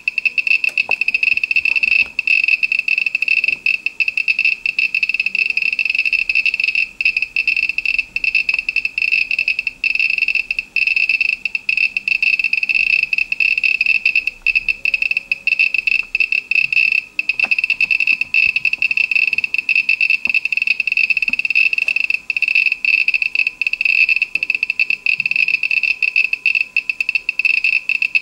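Homemade Geiger counter's piezo beeper giving a high-pitched beep for every count of its SBM-20 tube, so fast and irregular that the beeps run almost together. This is a high count rate, about 1,600 counts per minute (roughly 10.5 µSv/h), from a radioactive sample close to the tube.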